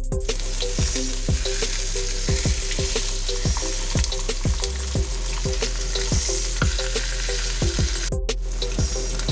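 Pork baby back ribs sizzling in hot oil in a nonstick pan as they sear, with background music and its steady beat underneath. The sizzle cuts out briefly about eight seconds in.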